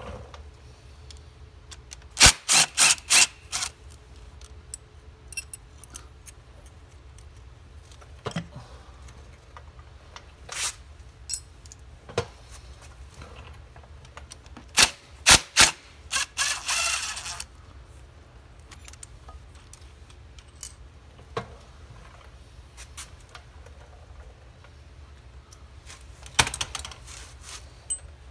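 Hand tools and metal parts clicking and clinking in short scattered clusters while the bolts holding an engine cover are undone, with a brief rasping stretch near the middle.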